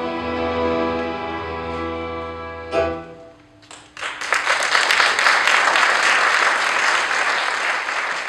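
Live fiddle-led band playing the final bars of an English country dance tune, ending on a held chord about three seconds in. After a short pause the audience breaks into sustained applause.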